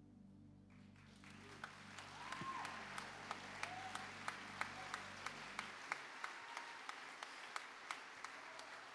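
Congregation applauding as a sustained keyboard chord fades out, with sharp ticks repeating about three times a second through the applause.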